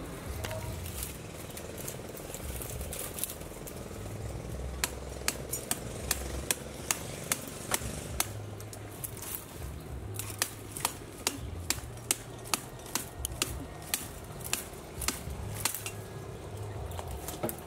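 Sharp clicks and snaps of branches and twigs in a tree being climbed, coming about two a second from about five seconds in until shortly before the end, over a low rumble.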